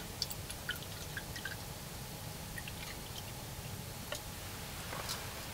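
White wine poured from a small bottle into a plastic wine glass: faint trickling with small scattered glugs and ticks in the first second or so, and a brief louder rush about five seconds in.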